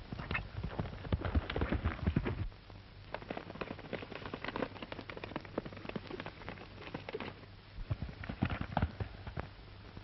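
Galloping horse's hooves drumming on dirt in quick, uneven beats, loudest in the first two and a half seconds, fainter after that, and picking up again near the end. A steady low hum of an old film soundtrack runs underneath.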